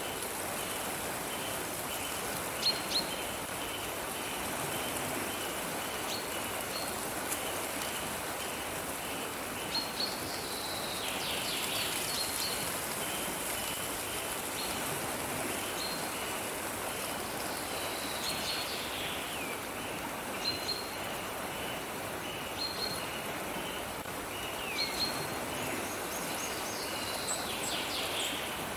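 Steady rush of a running stream with birds calling over it: short high chirps every second or two, and now and then a call that slides downward in pitch.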